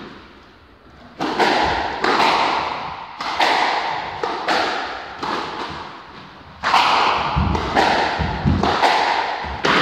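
Squash rally: the rubber ball cracks off the rackets and the court walls in a quick run of sharp hits, about two a second, each with an echoing tail. The hits start about a second in.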